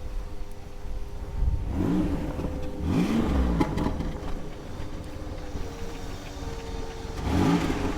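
1999 Buick Century's V6 running and revved twice, its pitch rising and falling about two seconds in and again near the end. It is still surging a little and not running smoothly, which the owner takes for a misfire.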